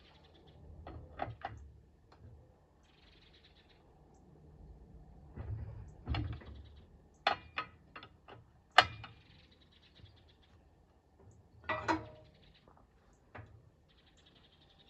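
Sharp metal knocks and clanks from hand work on a steel frame: one pair about a second in, a quick cluster around seven to nine seconds with the loudest just before nine, and another pair near twelve seconds. A faint high chirring comes and goes between them.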